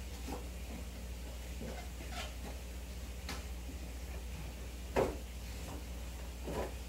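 Aquarium aeration: a steady low hum with soft, irregular pops and ticks of air bubbles breaking at the water surface, the loudest about five seconds in.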